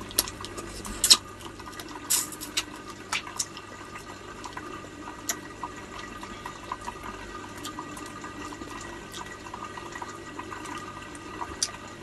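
Close-up wet eating sounds of crab: lips smacking and sucking on the meat, with scattered sharp clicks, the loudest about one and two seconds in. A steady trickle of running water goes on underneath.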